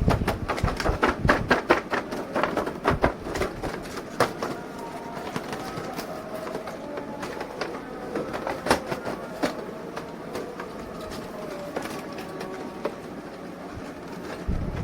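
Hard plastic toy packaging and figures being handled: a quick run of sharp clicks and rattles in the first few seconds, then quieter, scattered clicks.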